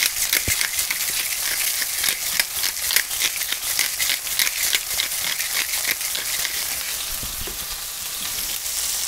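Minced beef frying in hot oil in a pan: a steady sizzle full of quick spitting crackles, easing a little over the last couple of seconds.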